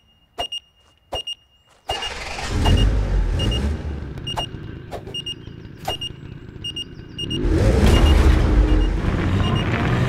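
Short high electronic beeps repeating, the app's distress call going out, with a few sharp clicks in the first two seconds. A loud low vehicle engine rumble swells in about two seconds in and louder again from about seven seconds in.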